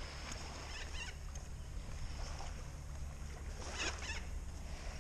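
Shoreline outdoor ambience: a steady low rumble of wind on the microphone, with a few brief soft rushes and faint bird calls.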